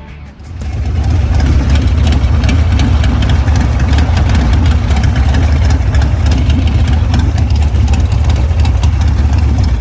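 Harley-Davidson V-twin motorcycle engine running loud and steady. It comes up over the first second and cuts off abruptly at the end. A helmet-mounted microphone picks it up with a lot of popping and crackling from wind and bike noise.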